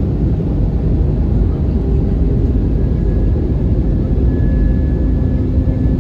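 Steady low rumble of an Airbus A320neo airliner in flight, heard from inside the cabin: engine and airflow noise. Faint steady whining tones join it about four seconds in.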